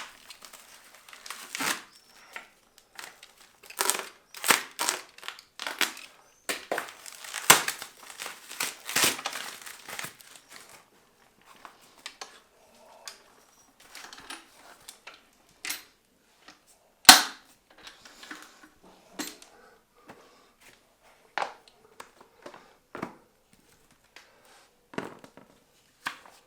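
Packaging being unwrapped: dense crinkling, crumpling and tearing for about the first ten seconds, then scattered handling clicks and rustles, with one sharp knock about halfway through.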